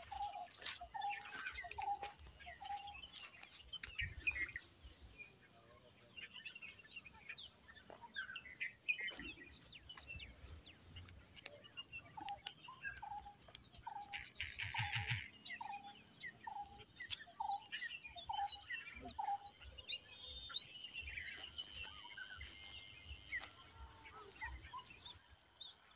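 Rural evening ambience: a steady high insect drone, like crickets, under scattered bird chirps. A short low call repeats about twice a second near the start and again for several seconds past the middle.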